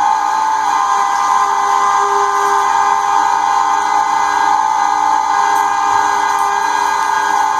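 Cabela's half-horsepower Carnivore electric meat grinder running steadily with a high, even motor whine while grinding meat.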